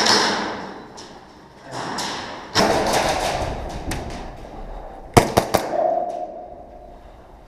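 Airsoft guns firing in a plywood-walled indoor arena: a loud thud at the start, scattered sharp cracks and taps, and a quick group of three sharp shots about five seconds in.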